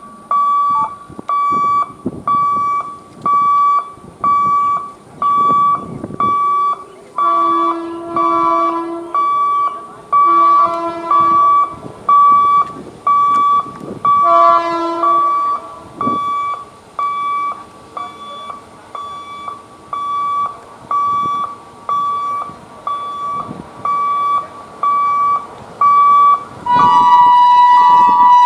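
Railway level-crossing warning alarm beeping steadily, a little over once a second, signalling that a train is due. Long horn blasts sound at about 8, 11 and 15 seconds in, and near the end a louder, higher horn starts and holds.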